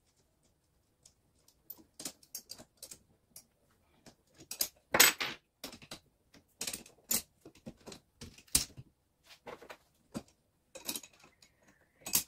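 Irregular metal clicks, clinks and light knocks as the parts of a steel paintless-dent-repair bridge lifter are handled and adjusted, with the loudest knocks about five seconds in and again near the end.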